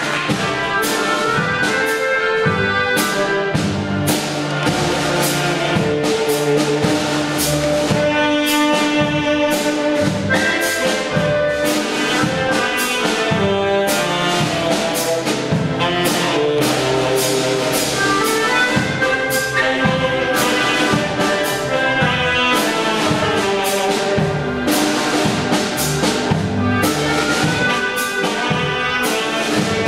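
Live old-time polka dance band playing an upbeat tune, horns carrying the melody over a steady drum beat of about two strokes a second.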